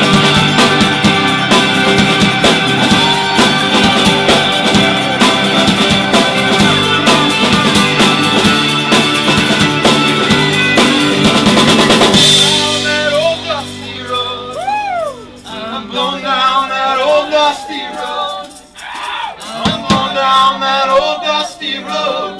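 Live band with a full drum kit playing loud and dense; about twelve seconds in the band stops abruptly. After that a man's voice carries on nearly alone into the microphone, with long sliding notes.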